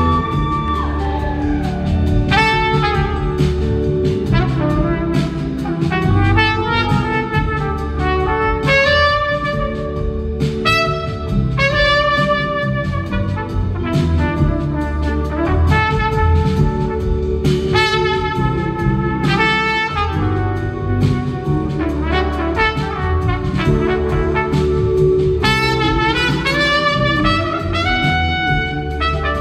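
Live trumpet solo over the full band's backing: the trumpet plays phrases of held notes and quick runs above a steady rhythm section.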